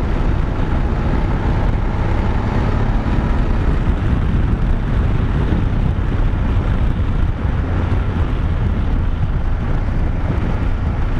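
BMW F850GS Adventure's parallel-twin engine running steadily at about 85 km/h on a washboard-corrugated dirt road, mixed with a constant rumble of tyres and suspension over the ridges and wind on the microphone.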